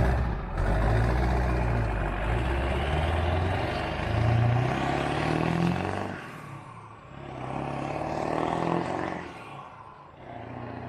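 A truck engine running, rising in pitch a few seconds in, dropping off around the middle, then swelling again and fading near the end.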